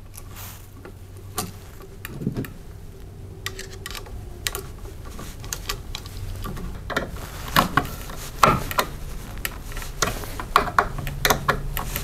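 Scattered light clicks and scrapes of a single-pole light switch being worked by hand: a wire hooked onto its terminal screw, then the switch pushed into a plastic electrical box and fastened. The clicks come thicker in the second half.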